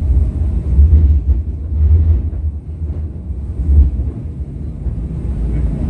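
English Electric Millennium Car tram under way, heard from inside: a low rumble that swells and eases every second or so.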